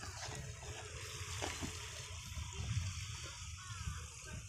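Faint, steady background noise: a hiss with a low rumble, and a couple of soft ticks about a second and a half in.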